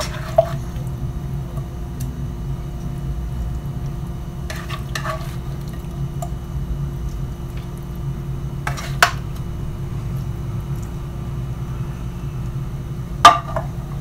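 A metal utensil scraping and knocking against a frying pan as saucy sliced pork is scraped out onto a plate, with a few sharp clinks: just after the start, twice around five seconds, around nine seconds and loudest near the end. A steady low hum runs underneath.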